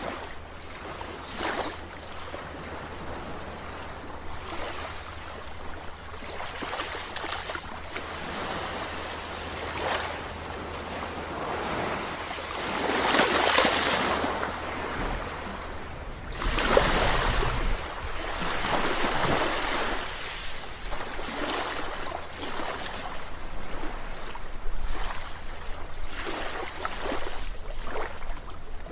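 Sea waves breaking and washing up on a beach, the surf swelling and falling every few seconds, with the biggest breaks near the middle.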